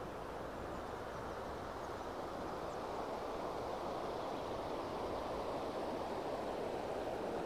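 A shallow river rushing over stones and a stony riffle, a steady rush of water that grows a little louder about halfway through.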